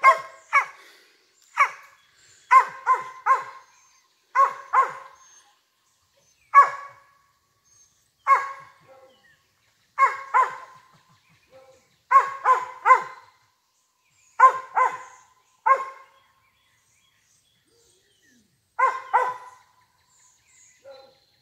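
Young cur dog tree-barking at a squirrel he has spotted in the trees: sharp single barks and quick runs of two or three, with a pause of a few seconds near the end.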